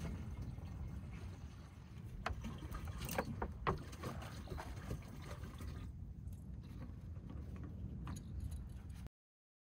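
Steady low rumble of wind on the microphone, with a few sharp plastic clicks and knocks as a water jug and plastic water bottle are handled, most of them between two and four seconds in. The sound cuts off abruptly near the end.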